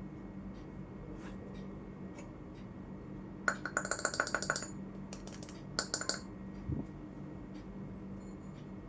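Small metal pieces of a miniature toy kitchen set clinking and rattling together with a bright ring: a quick flurry of clinks about three and a half seconds in, then two shorter ones around five and six seconds. A steady low hum and a few faint taps run underneath.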